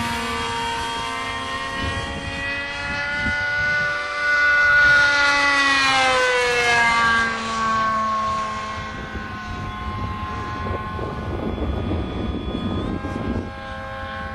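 Brushless 2212 electric motor and pusher propeller of a foamboard RC jet whining as the model flies past. The whine is loudest and its pitch drops about four to seven seconds in as it goes by, then it carries on as a steadier, fainter drone.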